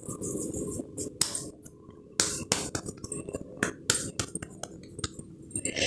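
Irregular soft taps and clicks, a few a second, as hands pat and press a ball of pumpkin and flour dough flat between the palms.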